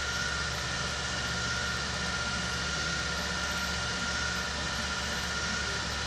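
Steady room background noise: an even hiss with a constant hum, unchanged throughout.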